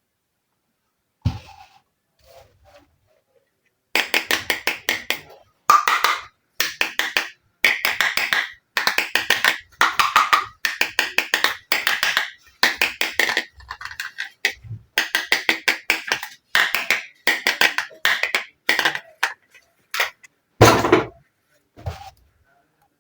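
Small plastic miniature kitchen toy pieces clicking and clattering in quick runs of sharp clicks, starting about four seconds in. The runs come in short bursts, less than a second each, one after another, with a single heavier knock near the end.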